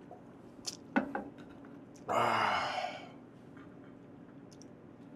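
A man lets out a loud, breathy sigh of about a second after knocking back a shot of liquor. A few short clicks and knocks come just before it.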